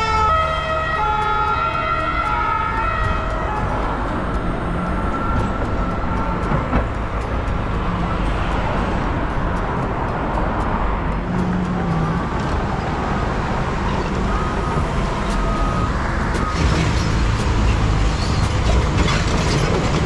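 An emergency vehicle's siren sounding in stepped pitches and fading out after three or four seconds, over a steady rumble of traffic and engines that carries on.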